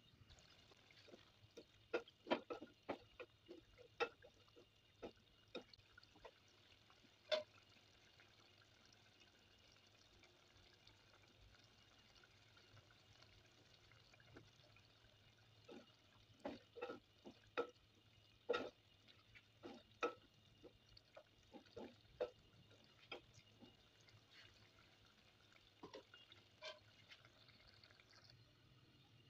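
A spatula stirring a thick, saucy bottle gourd curry in a pot, with wet liquid sounds and scattered sharp taps against the pot in two bursts, over a faint steady hiss.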